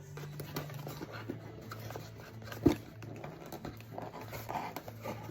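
A small cardboard box being handled and opened, with rustling, light taps and one sharp knock about two and a half seconds in, over a faint steady low hum.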